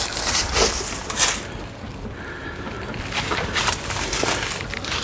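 Footsteps crunching and scuffing on loose debris, a few irregular steps and scrapes, loudest in the first second or so.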